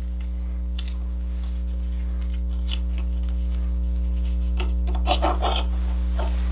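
A steady low electrical hum, with light scratching and rubbing of plastic and wire as a motorcycle turn-signal's wiring is worked out through the fairing. A short cluster of rustles and clicks comes about five seconds in.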